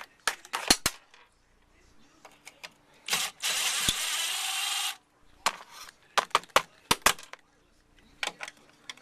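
A power drill runs in one steady burst of about two seconds, among scattered sharp clicks and knocks of tools and metal trim parts, as interior trim screws are taken out.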